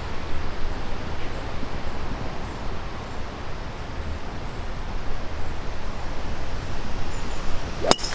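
Wind rumbling on the microphone, then near the end a single sharp crack of a golf club striking the ball on a tee shot.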